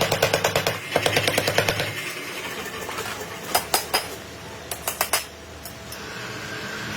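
Rapid, evenly spaced hammer blows on steel, several a second, stopping about two seconds in; then a few separate metallic clinks, and a steady hum near the end.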